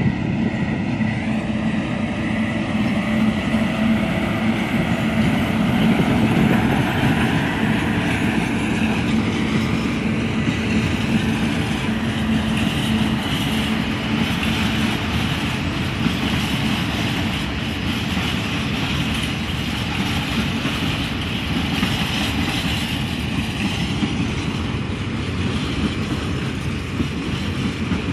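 Freight train of loaded phosphate hopper wagons rolling past at close range: a continuous rumble and clatter of wheels on rails. A low hum fades about halfway through.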